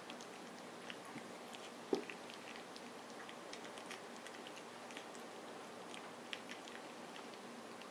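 Newborn Wire Fox Terrier puppy suckling at a feeding bottle and at fingers: faint, scattered wet mouth clicks and smacks. One brief louder knock about two seconds in.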